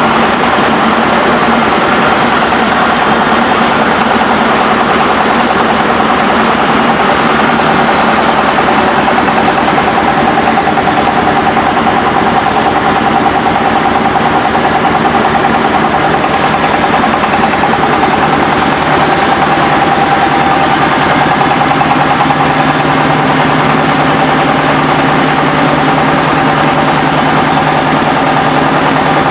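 Mobile rice-milling machine running steadily at a constant pitch, its engine and huller making a loud, even hum. A deeper hum comes in a little past halfway.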